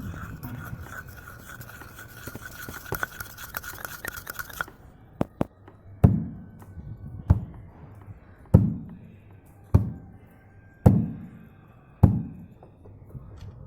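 A homemade sound effect made with household tools. It opens with a scraping, rubbing sound with a steady whistle-like tone, which cuts off suddenly after about four and a half seconds. Then come six slow, heavy knocks, about a second apart, each with a low booming decay.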